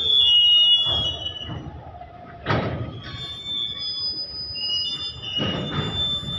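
Goods train's freight wagons rolling slowly past, their wheels squealing against the rails in high, steady tones that shift in pitch, loudest in the first second. Dull clunks from the wheels and wagons come several times, the clearest about two and a half seconds in.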